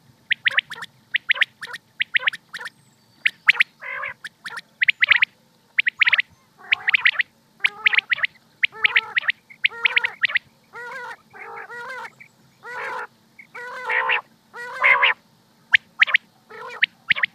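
Common quail calling: a quick series of short, sharp notes in twos and threes. About halfway through they give way to longer, harsher, buzzier calls.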